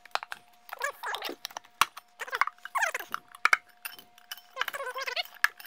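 Metal levers clicking and knocking against an aluminium electric-unicycle rim as a tyre bead is pried over it, with the rubber bead squeaking in a few drawn-out squeals that fall in pitch.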